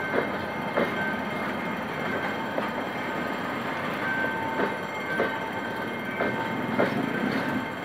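Passenger coaches rolling slowly past on jointed track: a steady rumble of wheels and running gear, with a click or knock every second or so as the wheels cross rail joints.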